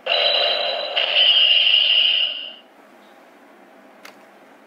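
Bandai DX Decade Driver toy belt playing an electronic sound effect through its small speaker, a steady buzzing tone that cuts off after about two and a half seconds. A sharp plastic click follows near the end as the buckle is turned by hand.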